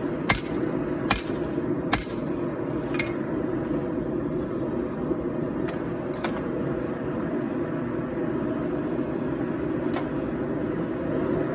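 Three hammer blows on hot steel at the anvil, a little under a second apart, in the first two seconds while forging the knife, then a few light taps. A steady roar from the forge runs underneath throughout.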